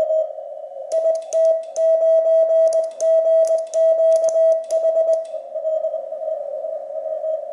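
Morse code at about 20 words per minute from an Icom IC-7300: the rig's high, steady beeps keyed on and off, with the rapid clicking of a Begali Expedition iambic paddle from about a second in to about five seconds in. After that the Morse tone carries on with a hiss of band noise around it, as a signal coming through the receiver.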